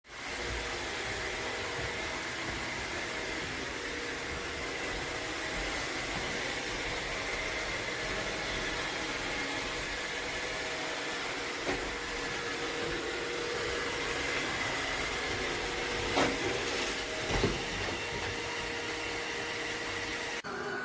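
iRobot Roomba Combo robot vacuum running steadily, a constant motor-and-brush hum with a faint whine, with three short knocks in the second half.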